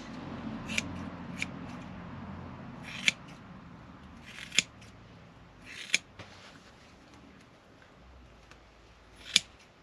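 Scissors cutting latex mattress foam: about half a dozen separate sharp snips, a second or more apart, over rustling handling that is strongest in the first few seconds.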